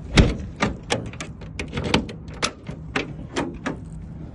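A run of about ten sharp clicks and clunks from a truck compartment's lock and latch being worked, the loudest about a quarter second in.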